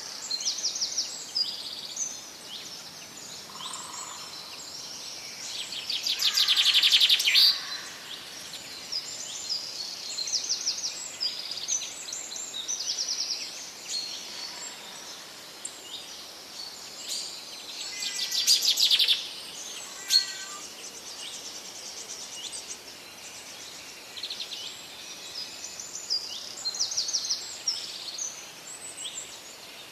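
Several forest birds singing, with overlapping high chirps and short trills over a steady hiss of background noise. Two louder, longer rapid trills stand out, about six seconds in and again about eighteen seconds in.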